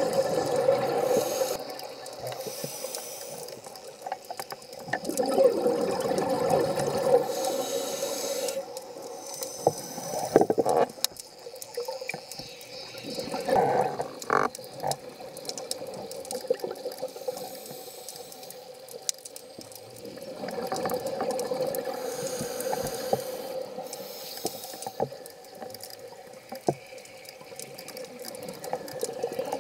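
Scuba diving regulator heard underwater: exhaled air bubbling out in slow surges several seconds apart, with quieter stretches between breaths.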